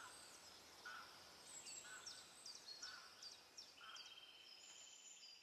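Faint woodland birdsong: quick high chirps that fall in pitch, a lower call repeating about once a second, and a buzzy trill in the second half.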